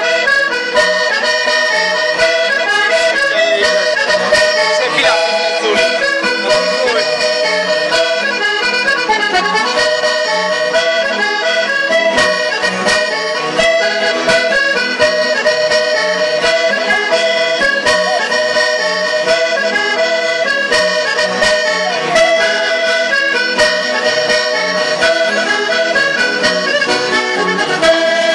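Accordion playing a traditional Sardinian circle-dance tune, with a melody over chords. It starts abruptly and keeps going.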